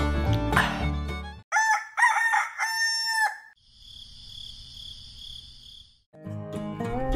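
Rooster crowing, a short call and then a longer drawn-out one, between stretches of background music. A steady high hiss follows for a couple of seconds before the music comes back.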